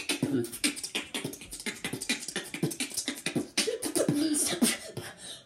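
A boy beatboxing: a fast, dense stream of percussive mouth clicks and pops, with short pitched vocal sounds mixed in around the middle.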